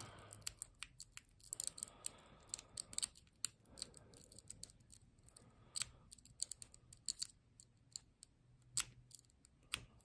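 Steel snake rake being worked in and out of a small Lockwood 30mm padlock's keyway: quick, irregular sharp clicks of the pick against the pin stacks, with some scraping.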